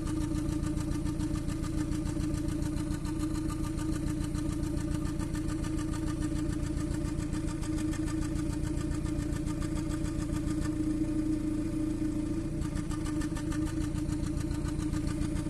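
2014 Kia Cerato's four-cylinder engine idling steadily with a sputter while one injector is shut off through a scan-tool actuation test. The uneven firing is the sign of a misfire that the test is used to trace to a single cylinder.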